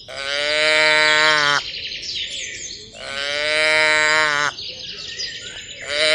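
Cattle mooing: three long, steady moos, each about a second and a half, about three seconds apart.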